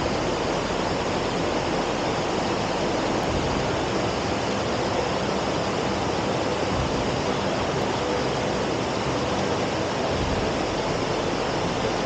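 Water from a small stream cascade rushing steadily over rock into a pool.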